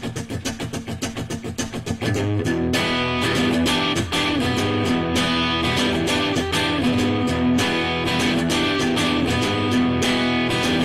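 Guitar-led intro music: a quick repeated figure, then from about two seconds in the music fills out with sustained strummed chords.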